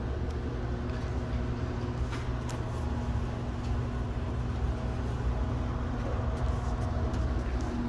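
Elevator car running as it rises: a steady low hum with a faint steady tone above it and a few light clicks.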